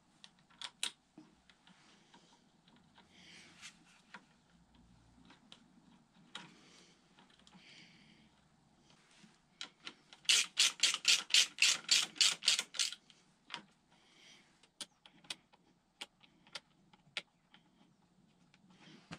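Ratchet clicking as bolts are tightened: a quick run of about fourteen loud clicks at about five a second midway through, with scattered lighter tool clicks and taps before and after.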